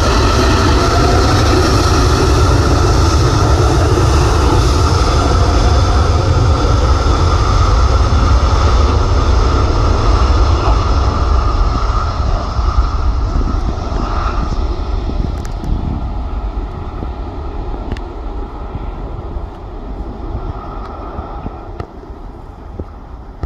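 Airbus A380's four jet engines running as the airliner rolls close past and then moves away: a steady whine over a low rumble, loud at first and fading over the second half.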